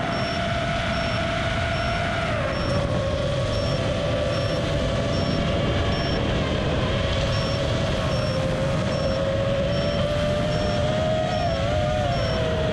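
FPV quadcopter's brushless motors whining in flight, the pitch dipping and wavering as the throttle changes, over heavy wind rush, as picked up by the GoPro Hero7 mounted on the quad. A faint high beep repeats about two or three times a second throughout.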